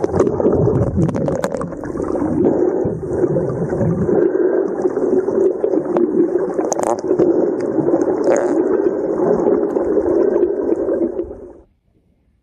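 Underwater ambience: a loud, muffled rushing noise with scattered clicks and pops. It cuts off suddenly near the end.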